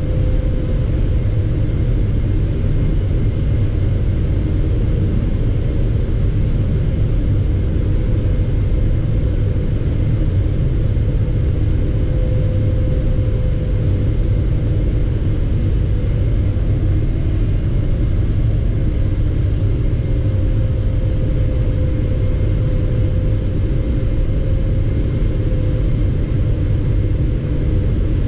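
Steady low rumble of a Boeing 777-300ER's cabin on approach, heard at a window seat beside its GE90-115B engine, with a faint steady hum over it.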